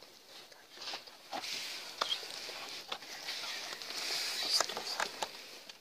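A new panel air filter being handled and fitted into a car's plastic airbox: rustling with scattered light clicks and taps.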